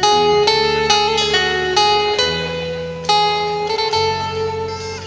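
Live band music: guitars play a melody of held notes over a bass guitar line, with no singing heard.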